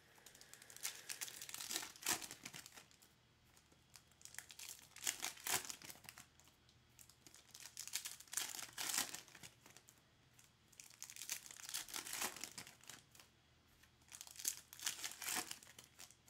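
Foil wrappers of 2022 Topps Finest MLS card packs crinkling and tearing as packs are opened and handled, in bursts every few seconds.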